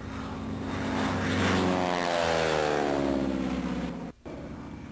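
An engine passes by, growing louder and then falling steadily in pitch as it goes. The sound cuts off abruptly about four seconds in.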